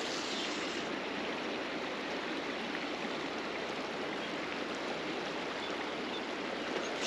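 River water rushing steadily over a riffle, an even, unbroken hiss.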